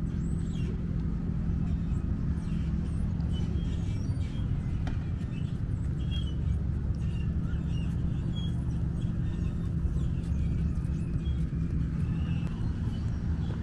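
Outdoor ambience of a lakeside park: a steady low rumble with a faint hum, and small bird chirps scattered over it.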